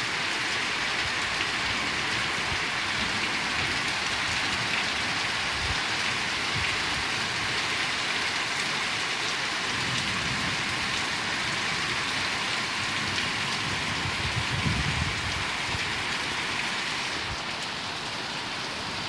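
Heavy rain pouring down steadily in a downpour, with a couple of brief low rumbles about ten and fifteen seconds in. It gets slightly softer about seventeen seconds in.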